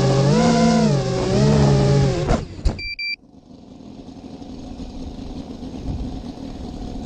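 Electric motors and propellers of a radio-controlled aircraft whining, the pitch rising and falling twice with the throttle, then winding down and stopping about two seconds in. A click and a short electronic beep follow, then a quiet hiss.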